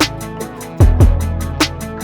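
Background music with a steady beat: electronic-style drums with ticking hi-hats and deep kick drums, over held bass and chords.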